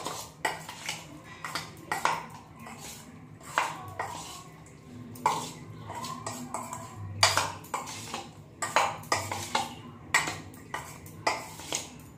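A metal spoon clinking and scraping against a stainless steel bowl in short, irregular strikes, about one or two a second, as paneer cubes are tossed in a wet cornflour marinade.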